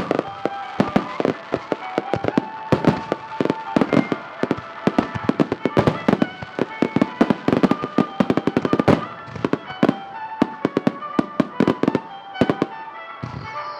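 Rapid barrage of firework bursts, many explosions in quick succession, thinning out near the end, with music playing underneath.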